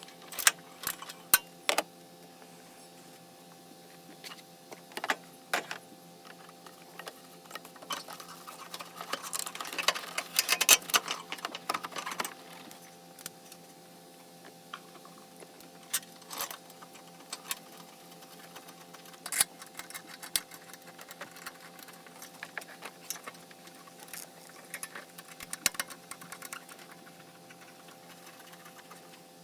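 Metal hand tools clicking and clinking during car repair work, in scattered single clicks with a dense run of quick clicks about ten seconds in, over a faint steady hum.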